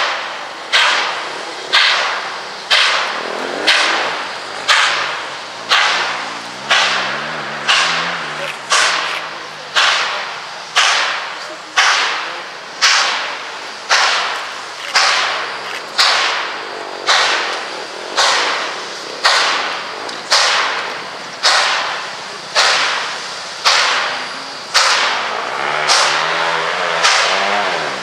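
Nickel Plate Road 765, a 2-8-4 Berkshire steam locomotive, working at low speed as it pulls away with its train, its exhaust giving sharp, evenly spaced chuffs about once a second, each dying away before the next.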